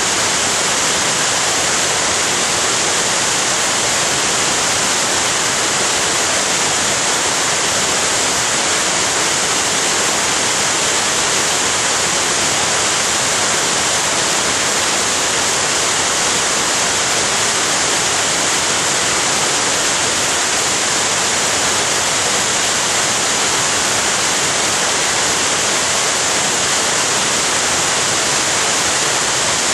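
Waterfall's falling water, a loud, steady rush that does not change.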